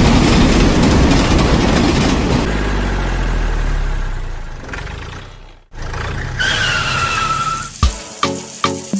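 Loud vehicle-like rumble that fades over a few seconds and cuts off about two-thirds of the way in. It is followed by a short, slightly falling whine, and then sharp plucked or struck notes start near the end.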